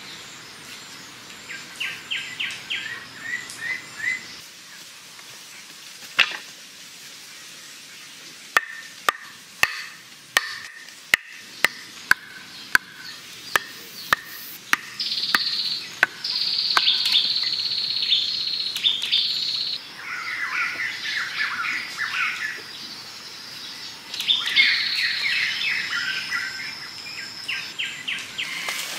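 Forest birds chirping in repeated short trills. From about a fifth of the way in comes a run of sharp wooden knocks, roughly two a second, as wooden stakes are driven into the ground with a wooden club. In the second half there are high, steady held notes.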